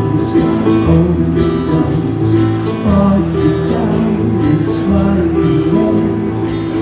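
Live acoustic band playing: two acoustic guitars strummed over held keyboard chords, with a man singing into a microphone.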